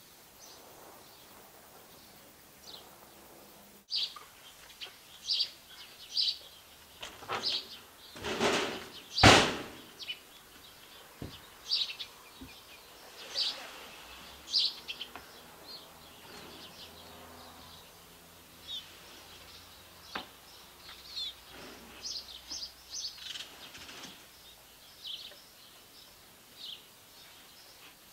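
Small birds chirping on and off against quiet outdoor background noise. There is a loud sharp knock about nine seconds in.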